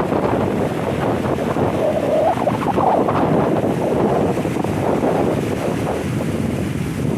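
Wind buffeting the microphone: a loud, steady rumbling rush.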